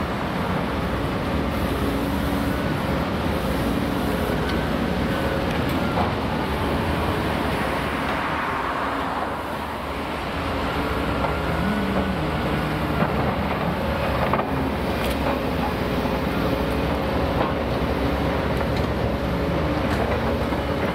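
Engines running steadily, their pitch shifting now and then, with a few sharp knocks.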